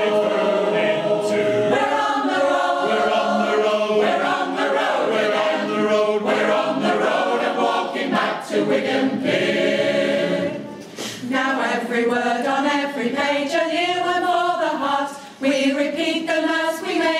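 Choir singing a cappella in harmony, several voices sustaining and moving through chords, with brief breaks about eleven and fifteen seconds in.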